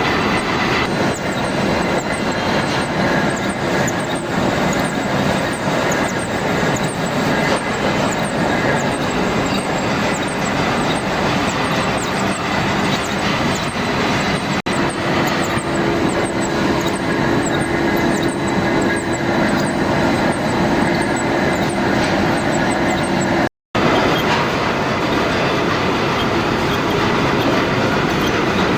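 Machine tool running and cutting a steel shaft, a steady mechanical noise with a faint tone that comes in about halfway and stops with a brief break about three-quarters through.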